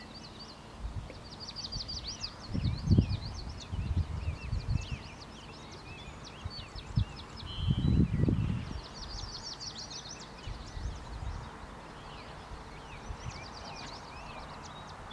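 Songbirds chirping and trilling all through, over a steady outdoor hiss, with bouts of low rumbling, the loudest about three and eight seconds in.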